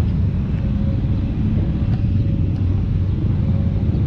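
Steady low rumble of a motor vehicle on the move, engine and road noise with a faint steady hum.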